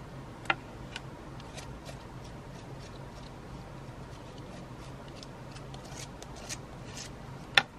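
Metal palette knife scraping and tapping modeling paste across a stencil on card: light, scattered ticks and scrapes, with a sharper click about half a second in and a louder one near the end.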